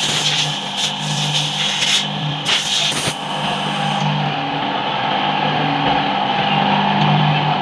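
Yamaha R15's 155 cc single-cylinder engine running steadily, with a few short bursts of hiss in the first half.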